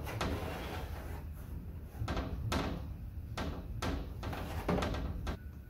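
A rubber window run seal being pushed and worked into the metal window channel of a square-body Chevrolet C10 truck door: a series of short scrapes and knocks, roughly one every half-second to second.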